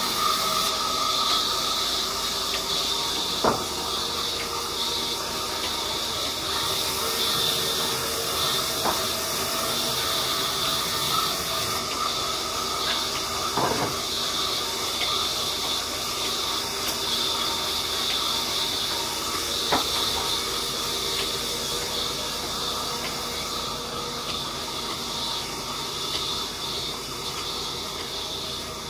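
Steady hissing noise with a faint hum under it. A few sharp wooden knocks come through, about three, as sawn planks are handled and stacked.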